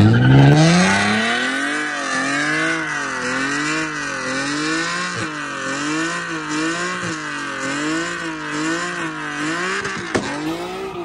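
Infiniti G37's 3.7-litre V6 revved hard in a burnout, with the rear tyres squealing. The revs climb steeply at the start, then rise and fall over and over, a little more than once a second.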